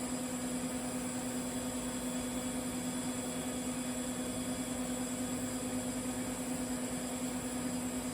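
TIG welding on carbon-steel pipe with 308 stainless filler rod: a steady electrical hum with a high hiss, even and unbroken throughout.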